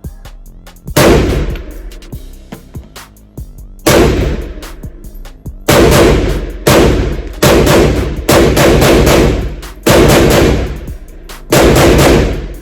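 AK-pattern pistol in 7.62x39 firing at the range: about seven loud shots, irregularly spaced, several in quick succession from about six seconds in, each with a ringing tail.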